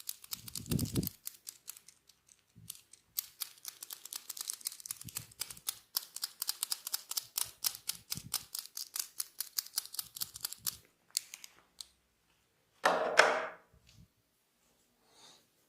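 Fast, steady crackling clicks of hands working through hair and over the scalp in an ASMR head massage, with a low thump about a second in. They stop, and a brief, louder, fuller sound follows near the end.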